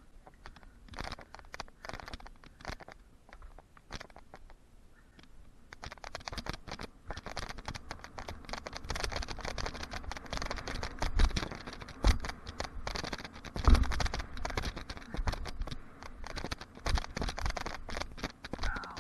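Mountain bike ridden over a dirt jump track: the tyres crunch on loose dirt and the bike rattles, getting louder after about six seconds. Several heavy thumps from landings come about two-thirds of the way through.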